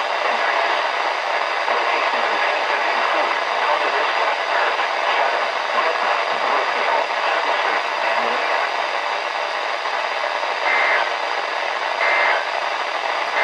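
Steady static hiss from a weather radio receiver tuned to a weak signal. Near the end come three short digital data bursts about 1.3 s apart, the pattern of an EAS/SAME end-of-message code.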